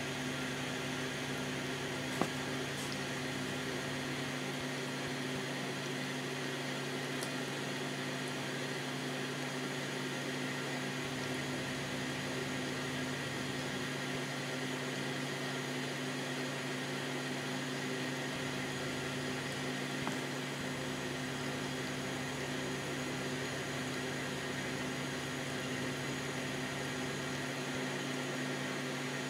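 Steady low hum with an even hiss, like a fan or small appliance running, unchanging throughout; a faint click about two seconds in.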